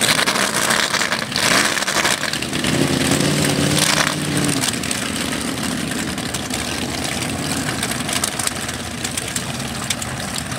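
Engine of a lifted mud-bog truck (a sedan body on giant tires) revving hard with loud rushing noise. The pitch holds steady for about two seconds, then drops back to a lower, steady idle about halfway through.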